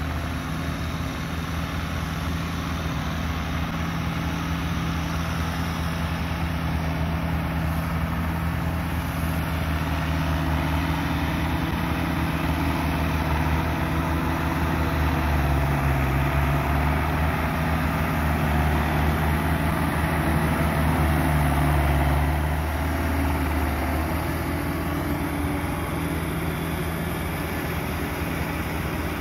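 Farm tractors' diesel engines running steadily under load as they drag implements through paddy-field soil. The engine drone grows louder past the middle, then eases a little with about seven seconds left.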